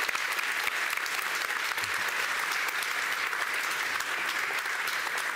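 Large audience applauding steadily: a dense, even clatter of many people clapping.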